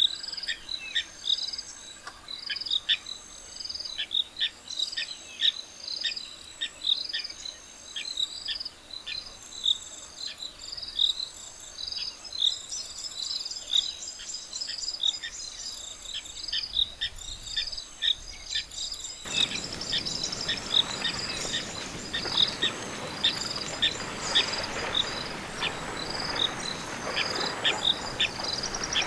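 Insects, cricket-like, chirping in a steady rhythm of short high calls. About two-thirds in, a steady hiss of water joins them as elephants wade through the shallow river.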